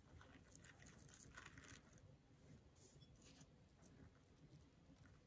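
Faint, irregular crunching and nibbling of a guinea pig chewing vegetables and hay, a few short crunches close together about a second in and again near the middle.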